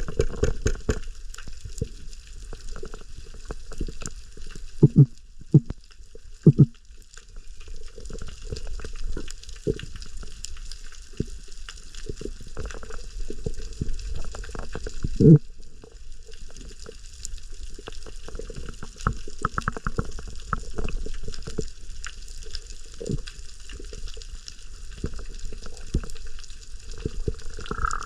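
Crackling, bubbling water heard underwater, with a few short dull knocks about five to six and a half seconds in and one more about fifteen seconds in.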